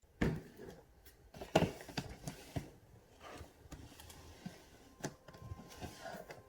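Packaging being handled: irregular knocks, taps and rustles, the sharpest about a quarter second in and again around a second and a half in.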